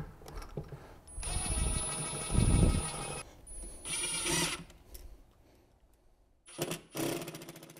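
Cordless drill/driver motor whining as it drives the toilet's hold-down screws into a wooden floor. It runs for about two seconds, then gives a short burst about four seconds in and a brief one near the end, as the screws are snugged up rather than overtightened.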